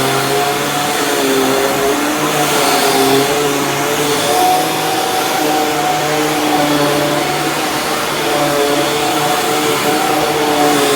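Dirt Devil Ultra Vision Turbo upright vacuum cleaner running on carpet, its motor tone wavering a little in pitch.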